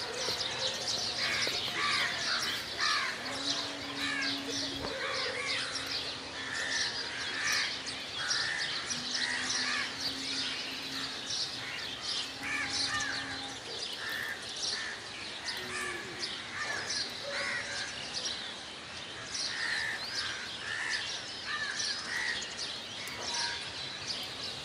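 Many birds chirping and calling without pause, a dense outdoor chorus of short, quick notes.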